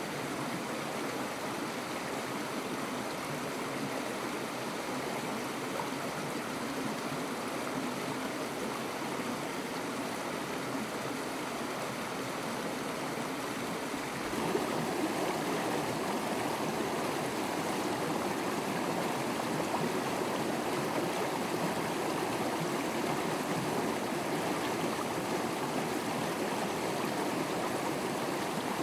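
Steady rush of flowing water, like a stream; it becomes louder and fuller about halfway through.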